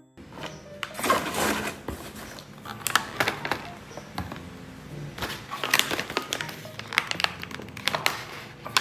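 Plastic snack packaging crinkling and a plastic jar knocking as it is handled and set down on a table, with sharp clicks and rustles throughout and the densest crinkling about a second in. Soft background music plays underneath.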